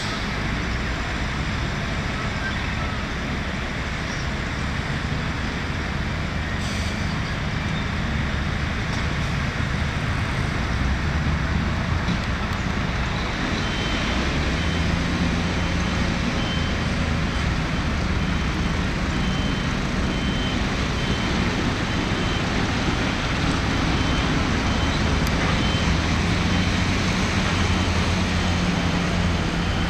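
Heavy diesel work machinery running steadily under load. About halfway through, a reversing alarm starts beeping evenly, about once a second.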